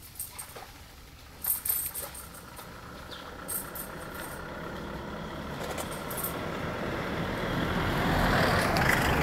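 A pickup truck drives up and passes close by. Its engine and tyre noise grow steadily louder through the second half and are loudest near the end.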